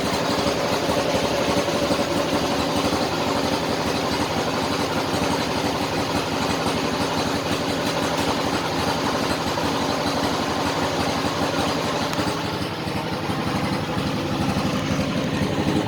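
Isuzu Panther pickup's diesel engine idling steadily.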